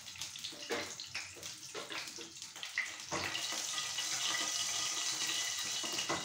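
Cumin seeds sizzling in hot ghee in a nonstick frying pan. A wooden spatula stirs and scrapes in the first three seconds. About three seconds in the sizzle becomes a steadier, louder hiss as the pan is tilted.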